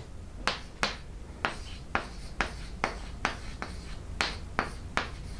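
Chalk writing on a blackboard: a quick series of sharp taps and short scrapes as digits are written, about three a second.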